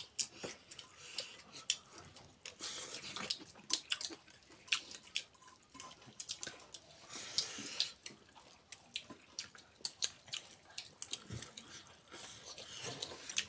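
A man chewing chicken with his mouth close to the microphone: wet smacking with many irregular sharp clicks of lips and tongue.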